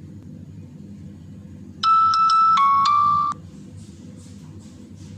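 Short electronic phone chime, a quick run of notes that steps down in pitch and lasts about a second and a half, starting about two seconds in: the payment app's tone confirming a successful payment.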